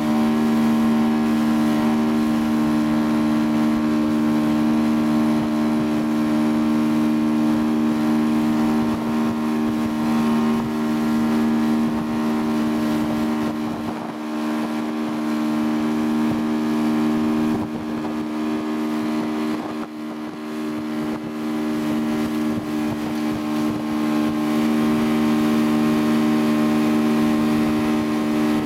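Motorboat engine running at a steady throttle while towing, over the rush of the wake and wind.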